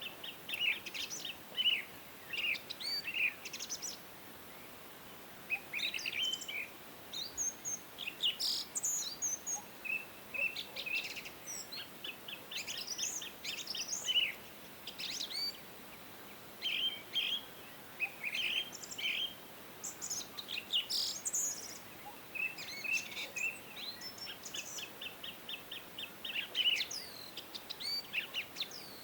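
Several songbirds singing and chirping in short phrases, including rapid trills of quickly repeated notes, with brief pauses between phrases over a faint steady background hiss.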